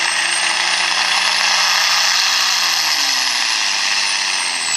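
A John Deere farm tractor's turbocharged diesel engine at full load pulling a tractor-pull sled, with a high turbo whistle that climbs and then starts to fall; the engine note drops after about three seconds as the pull slows.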